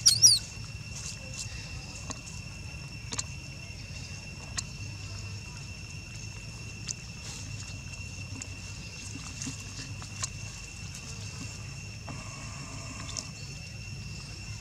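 Quiet outdoor background: a steady low rumble and a steady thin high-pitched tone, with a brief high squeak just after the start and a few faint clicks.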